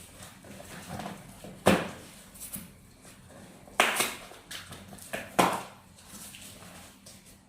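Cardboard TV box and its packing being handled during unboxing: three sharp knocks, with lighter rustling and bumping between them.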